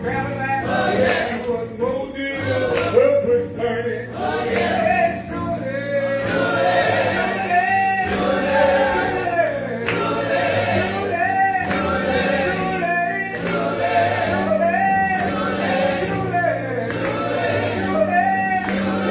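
Gospel choir singing a hymn over sustained low accompanying chords: the invitational song that follows the sermon.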